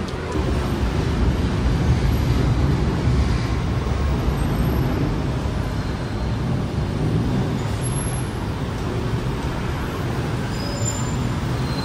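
Steady rumble of heavy city road traffic: car, bus and motorbike engines and tyres on a busy multi-lane road.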